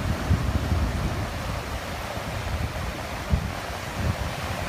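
Ocean surf washing in steadily, with wind buffeting the phone's microphone in uneven low gusts.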